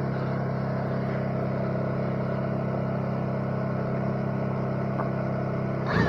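Chainsaw running at a steady, high speed, ripping lengthwise through a white oak log in a chainsaw mill. The pitch holds even, with a brief surge in loudness right at the end.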